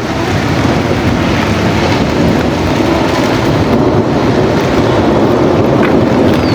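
Sea surf washing steadily onto the shore, with wind rumbling on the microphone.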